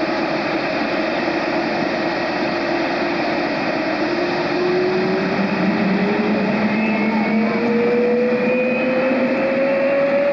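de Havilland Vampire's jet engine running with a steady, loud rushing noise; about four seconds in a whine starts rising steadily in pitch as the engine speeds up.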